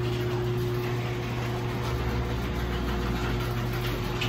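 Car engine idling: a steady low hum, with a deeper layer joining in about two seconds in.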